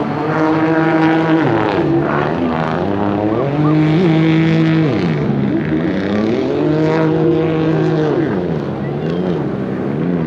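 Several racing aquabike (personal watercraft) engines running at high revs, their pitch rising and falling over and over as they speed up and back off, overlapping one another.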